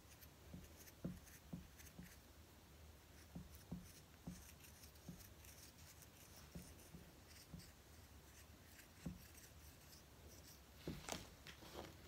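Faint scraping and rubbing of a wooden modelling tool on the inside of a soft clay cone as the join line is smoothed out, with many small irregular knocks. A louder scuffle near the end as the tool is set down and the cone lifted.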